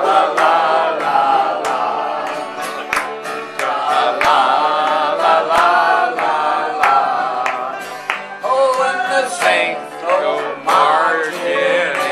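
Live acoustic folk music: a man singing into a microphone while playing a banjo, with more voices joining in and a sharp, steady beat.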